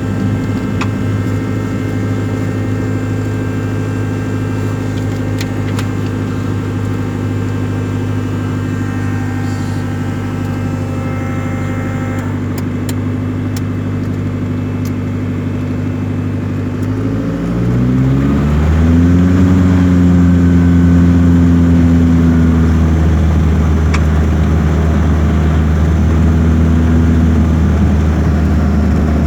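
Cessna 172R's four-cylinder piston engine and propeller running steadily at low power, heard from inside the cockpit. A little over halfway through, the engine speed rises over a second or two and it runs on louder and steady at the higher power.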